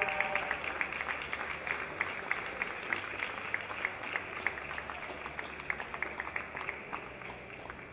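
Audience applause, many hands clapping steadily, thinning out and fading near the end.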